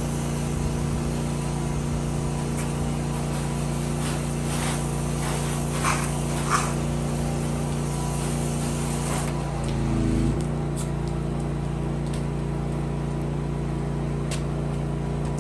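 A pressure washer's gas engine running steadily at a constant speed, with two brief louder sounds about six seconds in.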